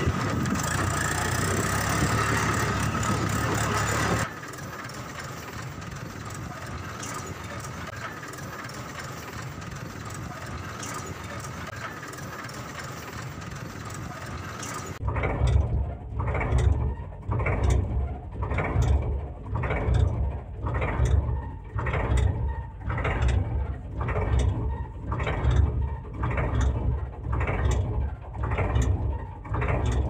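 A steady drone with several steady tones cuts off about four seconds in and gives way to a quieter steady hiss. About halfway through, a toy concrete mixer's small motor starts turning its geared drum: a rhythmic mechanical whirring and clicking that pulses about once every three-quarters of a second.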